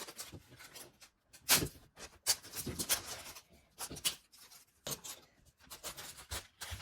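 A plastic toy egg and its packaging being handled and worked open: irregular scraping and rubbing strokes with a few sharp clicks, coming and going in short spells.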